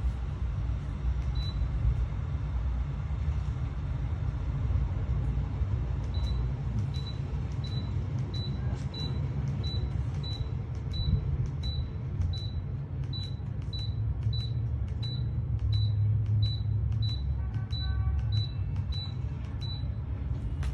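Low steady rumble like a running vehicle. From about six seconds in, a short high beep repeats evenly, about one and a half times a second, and stops near the end.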